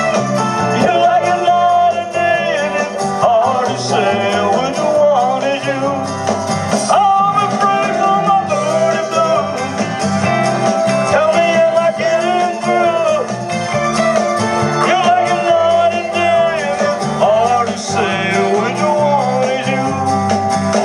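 Country-flavoured rock-and-roll music with guitar and singing, played over a PA speaker.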